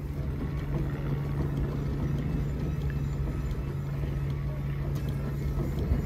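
Steam ploughing engine running in the field: a steady low hum over a rough low rumble.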